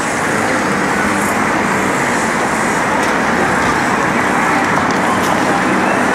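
Steady city street noise dominated by road traffic, a continuous rumble and hiss of passing vehicles.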